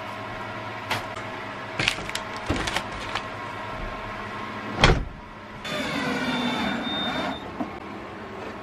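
Knocks and clatter of a wooden cabinet door and its fittings being handled, with one loud thump about five seconds in. Then a cordless drill-driver runs for about a second and a half, driving a screw into the cabinet.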